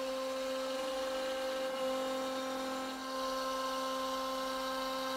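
CNC router spindle running at 18,000 RPM with a downcut spiral bit taking a shallow pass through MDF: a steady, even-pitched whine.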